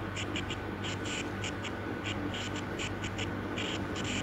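Stylus writing a word on a tablet screen: a quick, irregular run of short scratching strokes, over a low steady hum.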